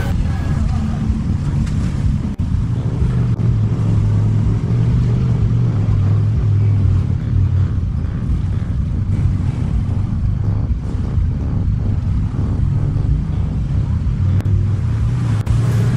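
Side-by-side UTV engine running steadily under way, its pitch shifting a little as the throttle changes.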